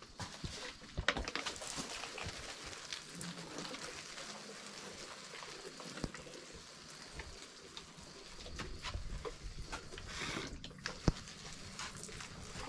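Handheld trigger spray bottles squirting water onto sweet pepper seedlings: irregular sharp clicks and the hiss and spatter of water on the leaves, with a louder burst of spray about ten seconds in.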